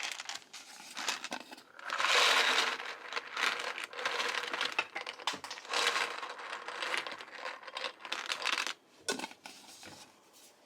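Plastic bag crinkling and rustling as it is handled, with many short crackles, loudest about two seconds in and dying away near the end.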